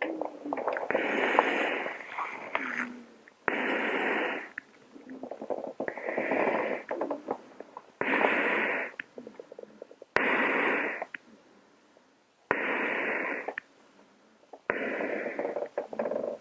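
A person breathing slowly and heavily inside a hazmat suit, each breath a loud hiss about a second long, roughly one every two seconds, with a sharp click at the start of a few of them.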